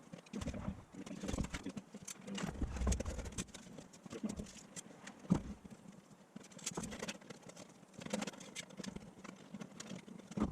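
Kayak out on the water, with irregular knocks and splashes of the paddle and water against the hull.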